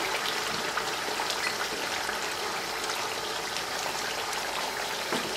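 Minced mutton sizzling in hot oil and tomato in a pan, a steady hiss with scattered small pops and spatters.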